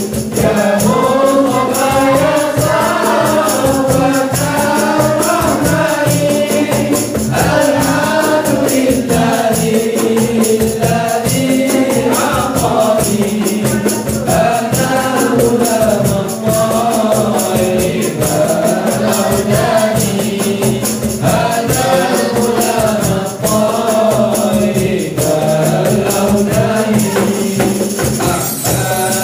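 Male vocal group singing a nasyid together through microphones, over hand percussion: congas, cajón and small drums, with a jingling tambourine-like shaker sound in the rhythm.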